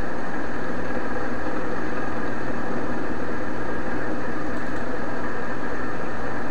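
Steady background hum and hiss of the recording, unchanging throughout, with no distinct events.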